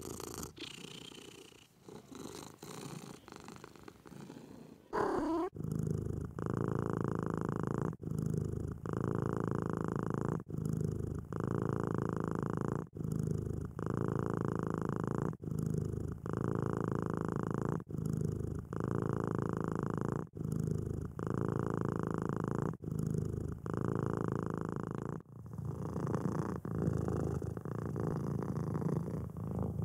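Domestic cats purring close up, in several cuts. Through most of the stretch a loud purr pulses with each breath, a little more than once a second.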